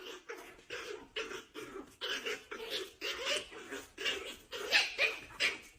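A dog giving a fast series of short, pitched whining cries, about three a second.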